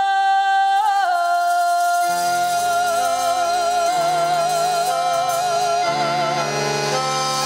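A woman's voice singing one long held note, stepping down slightly about a second in and then held with vibrato. Instrumental chords come in underneath it about two seconds in.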